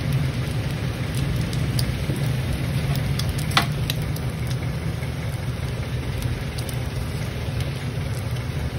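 Burger patties, bacon and an egg sizzling in grease on a flat-top griddle, over a steady low hum. A single short clink about three and a half seconds in.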